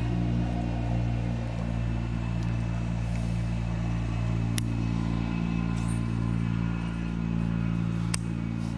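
A steady low engine-like hum at an unchanging pitch, with two sharp clicks about four and a half and eight seconds in.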